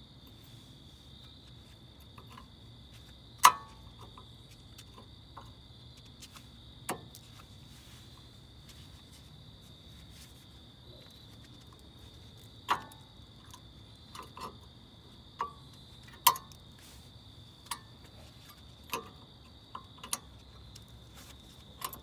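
Irregular sharp metallic clicks and knocks of a brake pad being worked and seated into a front brake caliper bracket and its abutment clips, about a dozen, the loudest about three seconds in and another near sixteen seconds. A steady high tone runs underneath.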